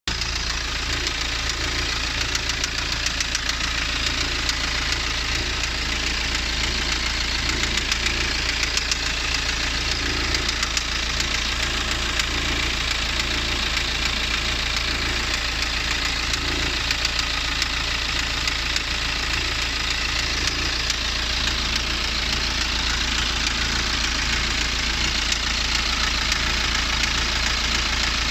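BMW N47 four-cylinder diesel engine (177 PS) running steadily with a repeated knocking sound over its running note. The cause of the knock is unknown to the owner.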